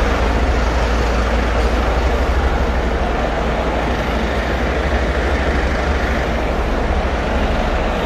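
Steady low rumble of a heavy diesel vehicle idling close by, most likely the fire engine parked at the kerb, over general street traffic.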